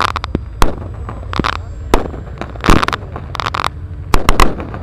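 Pyrotechnic charges and firecracker-style bangs going off in an irregular string, some single and some in quick clusters, over a steady low rumble.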